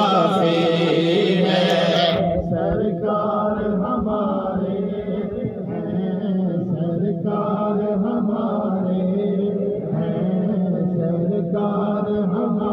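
A man chanting a devotional recitation into a microphone, in long held, wavering notes. The sound turns duller about two seconds in.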